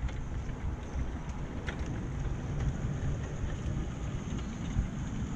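Miniature 7¼ inch gauge battery-electric locomotive and its coach running along the track: a steady low rumble of wheels on rail with a few faint clicks, and wind buffeting the microphone.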